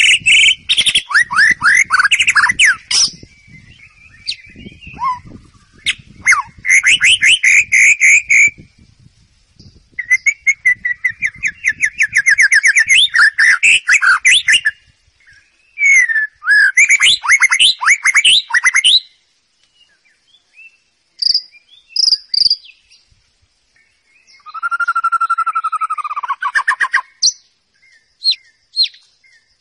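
White-rumped shama singing: phrases of a few seconds made of rapid repeated notes and whistles, separated by short pauses. About two-thirds through, one phrase carries a held whistle, and short sharp single notes follow near the end.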